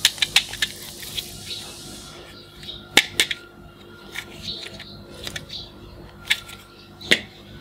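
Clicks and taps of a small toy pistol being handled and turned over in the hands: a quick run of clicks at first, then scattered single clicks, the sharpest about three seconds in.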